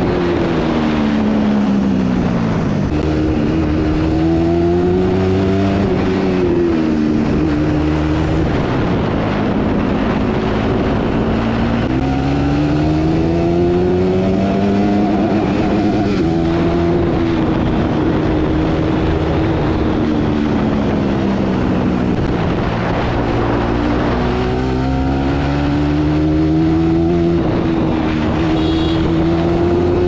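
Bajaj Pulsar NS200's single-cylinder engine through its stock exhaust, pulling hard at speed. The engine note climbs, drops back, then climbs again several times as the rider runs it up and eases off or shifts.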